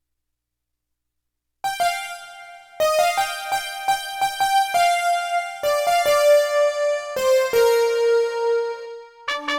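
Roland XPS-30 synthesizer playing a keyboard patch: after about a second and a half of silence, a melody of short, mostly repeated notes, settling on a held lower note near the end.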